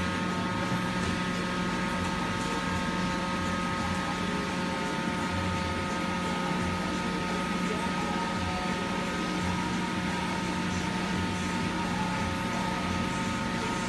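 Steady hum of running machinery, with several constant whining tones held at an even level.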